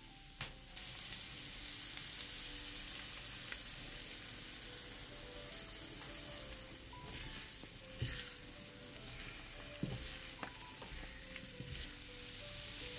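Food frying in a pan of hot oil, a steady sizzle that starts about a second in, with a few soft knocks of a utensil stirring it.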